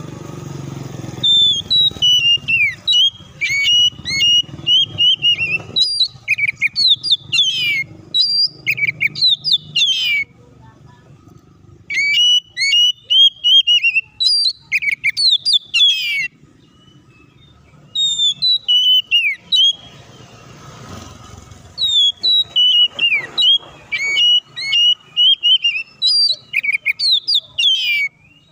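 Oriental magpie-robin singing loud, fast runs of varied whistled notes that slide up and down, in three long bursts with a pause of a couple of seconds between each.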